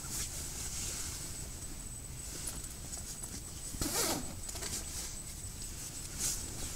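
Blankets and clothing rustling as a person shifts and handles bedding, in several short swishes, the loudest about four seconds in.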